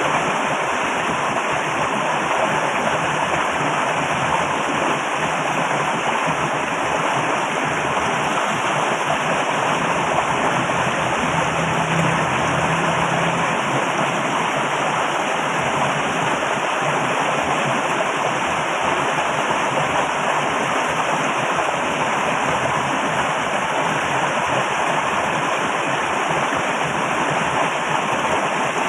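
Loud, steady rushing of flowing water, an even roar that does not change.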